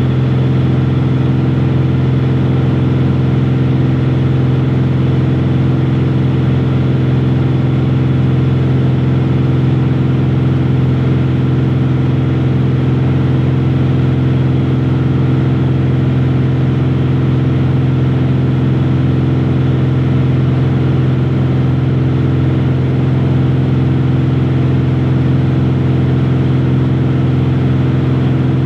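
Airplane engines and airflow heard inside the passenger cabin in flight: a loud, steady drone with a low hum and a few held tones over an even rush, unchanging throughout.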